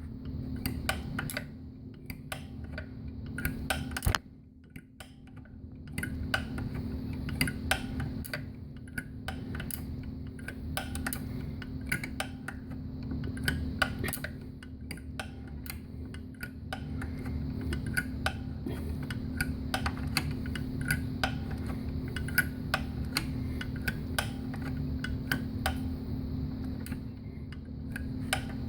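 Ratchet wrench clicking in irregular runs as it is swung back and forth to turn in an alternator bolt on a Honda GL1800, over a steady low hum. A single sharp knock about four seconds in is followed by a short pause in the clicking.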